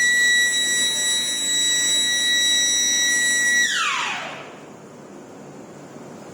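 Warning siren holding a steady high wail, then winding down in a falling glide about three and a half seconds in and dying away.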